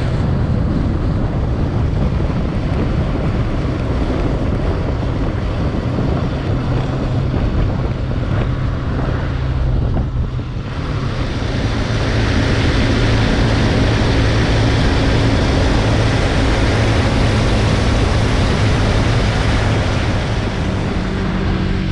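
Motorcycle riding at road speed: wind rushing over the microphone, with the engine running steadily underneath. About halfway through the sound shifts, and the engine's steady hum comes through more plainly.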